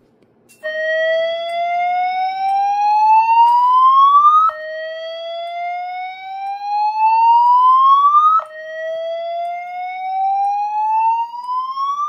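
Fire alarm wall speaker-strobe, driven by a relay-triggered MP3 player board, sounding a slow-whoop evacuation tone. It plays three rising sweeps of about four seconds each, starting about half a second in.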